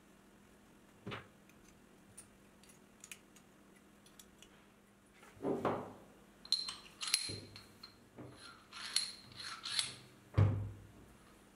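Steel parts of a tailstock die holder being handled: a knock, light clicks, then metal-on-metal clinks and scraping, some with a brief high ring, as a steel shank is fitted into the holder's bore. A heavier thud just after the tenth second is the loudest sound.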